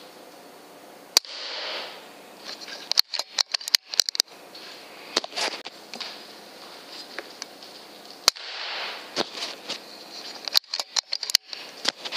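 .25 FX Impact M3 PCP air rifle shooting: sharp cracks about a second in and again about eight seconds in, each followed by a brief softer rush of noise. Runs of quick clicks come in between as the rifle is worked.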